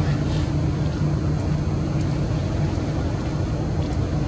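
A steady low mechanical hum, like an engine running at an even speed.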